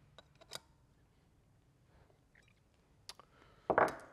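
Light metal clicks of a hex key working the socket heads of M6 bolts in a pit bike engine's aluminium intake manifold adapter as they are tightened down: a few clicks near the start, two more about three seconds in, then a louder knock near the end.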